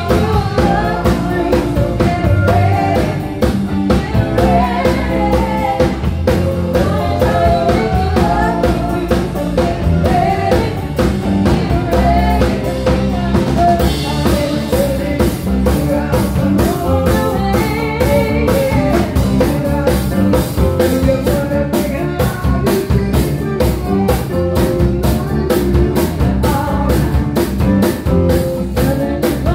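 Live band playing: a woman singing lead over electric guitar, bass guitar and a drum kit.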